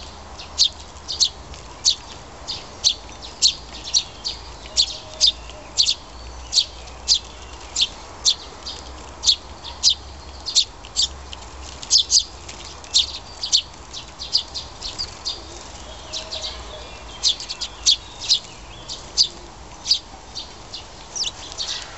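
A flock of house sparrows and Eurasian tree sparrows chirping continuously, short sharp chirps coming about two a second.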